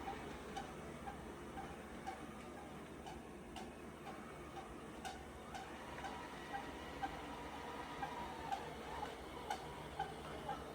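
Roborock robot vacuum running with a short squeak repeating about twice a second over a low steady hum, with a few sharp clicks. The squeak is the fault being filmed for a technician to diagnose.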